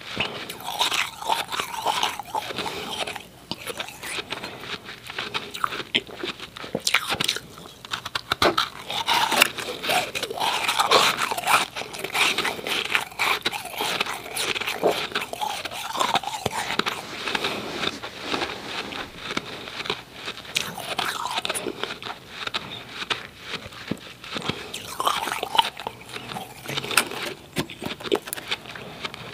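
Close-miked chewing of powdery refrozen ice: a dense run of crisp crunches, one after another.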